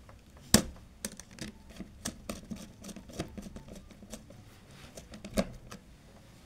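Hands handling a plastic contactor while a screwdriver works its terminal screw to clamp a red wire: a string of small clicks and taps, with a sharp knock about half a second in and another near the end.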